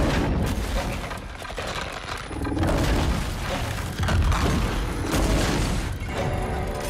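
Film sound effects of the ground splitting open: a deep, continuous rumble with a series of heavy booms and cracks.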